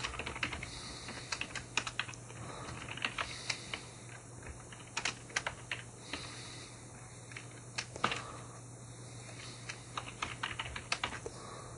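Typing on a computer keyboard: irregular runs of keystrokes with short pauses between them, over a faint steady hum.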